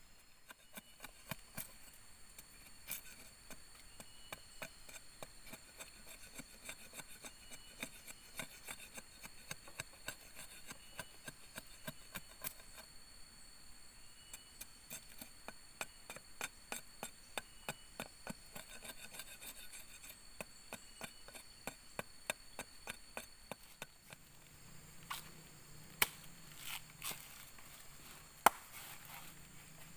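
Machete chopping at a wooden stick, a steady run of quick light knocks, a few a second. Near the end come a few louder, separate machete blows on a fallen coconut.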